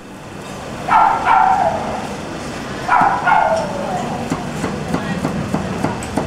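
Two loud drawn-out calls about two seconds apart, each falling in pitch, over a steady low street rumble. In the second half comes a run of quick light taps: a knife chopping vegetables on a wooden cutting board.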